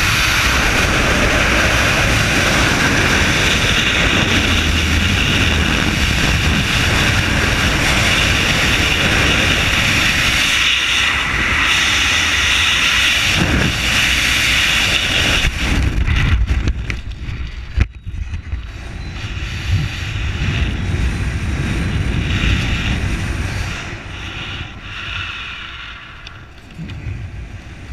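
Freefall wind rushing over the camera's microphone, loud and steady. About sixteen seconds in it drops off and turns gusty as the parachute opens, with a sharp snap a couple of seconds later, then quieter fluttering wind under the open canopy.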